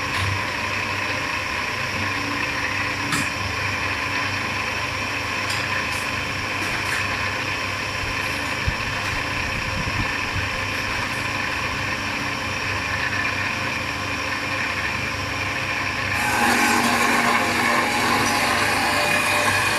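CNC cutting machine running with a steady mechanical hum and whine. About sixteen seconds in it becomes louder and brighter, as if another motor or the cutting load comes in.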